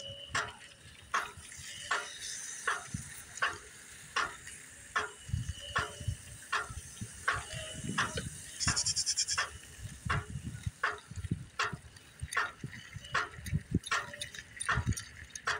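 A dog panting hard in a steady rhythm, about two breaths a second. There is a brief rattle about halfway through.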